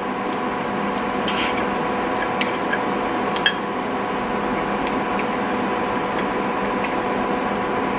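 Steady electrical or appliance hum in a small room, with a few faint clicks as a plastic loose-powder jar is opened and handled.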